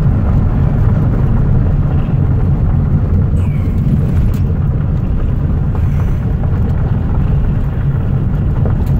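Steady low rumble of a car driving along a paved road: engine and tyre noise.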